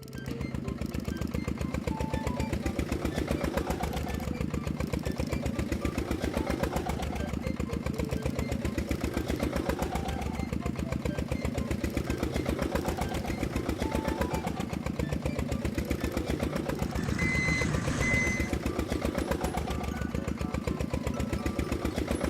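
Bulldozer diesel engine sound effect running at a steady, rapid chug, with two short high beeps about seventeen seconds in.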